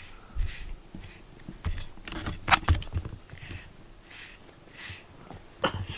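Soft swishing strokes of a rubber grooming brush through a cat's fur, about one a second, with a few sharp clicks in the middle and near the end.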